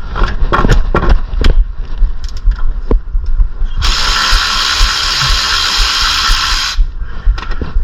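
Metal tool clicks and knocks, then a power tool runs steadily for about three seconds during work on the front brakes, followed by a few more clicks.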